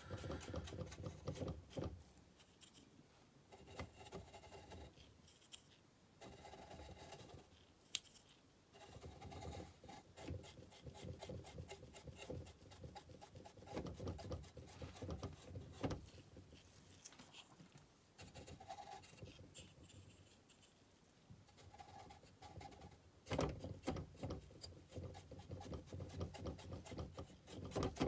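Brush scrubbing weathering powder onto a model boxcar's ribbed roof: faint, repeated short scratchy strokes, growing louder and quicker near the end.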